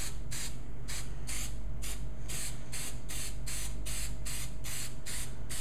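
Aerosol can of black spray paint hissing in short, rapid bursts, about three a second, as it is pulsed on and off.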